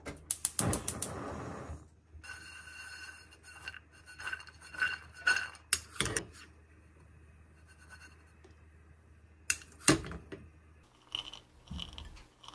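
Chopped walnuts dry-toasting in a nonstick frying pan on a gas hob: a quick string of clicks at the start, then scraping and rattling as the nuts are stirred and shaken in the pan, with two sharp knocks about ten seconds in.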